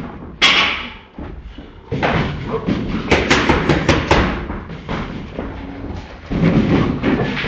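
Boxing gloves smacking focus mitts during pad work: one hard hit about half a second in, then a fast combination of about six punches around three to four seconds in.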